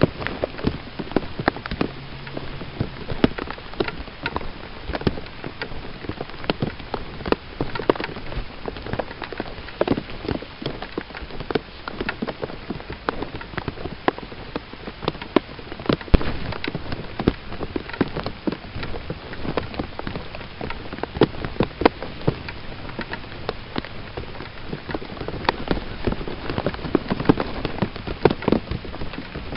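Steady rain, with many sharp, irregular drop hits over an even hiss.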